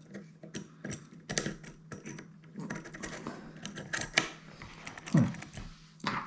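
Irregular small metal clicks and scrapes of a dimple lock pick and tension tool being worked into a Cisa Astral dimple lock cylinder, over a low steady hum.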